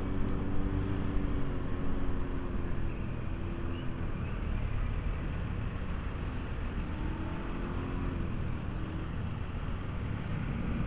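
Motor-scooter ride through traffic close behind a bus: steady engine hum with wind and road rumble. The engine tone sags and rises again twice as the speed changes.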